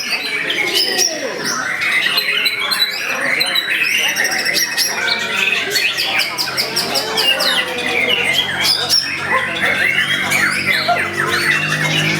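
White-rumped shama (murai batu) singing a loud, continuous, varied competition song of fast trills, sweeping whistles and sharp repeated notes without a break.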